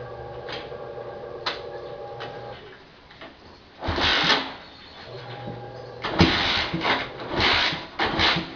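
Honda CG 125 motorcycle with a Roncar 'estralador' exhaust being started. A steady hum and a few clicks come first. About four seconds in there is a burst of noise, then repeated loud bursts from about six seconds on as the single-cylinder engine turns over and fires.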